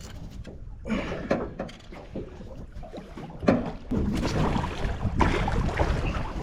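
Wind buffeting the microphone in an open fishing boat, with a few sharp knocks on the boat. The noise grows louder about four seconds in.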